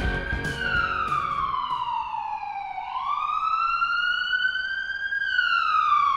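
Electronic ambulance siren wailing slowly. The pitch falls, jumps back up about halfway through, climbs gradually, then falls again, each sweep taking a few seconds. Rock music with guitar fades out during the first second or two.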